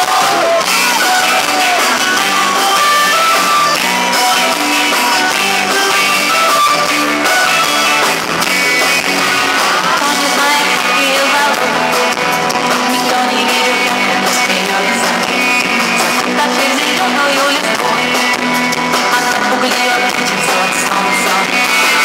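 Live rock band playing through a concert PA, heard from within the audience: electric guitars over a steady beat.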